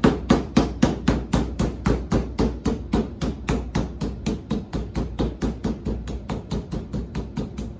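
Metal meat mallet pounding chicken breasts through plastic wrap on a plastic cutting board: a quick, even run of light blows, about five a second, flattening the cutlets thin. The blows grow a little softer toward the end.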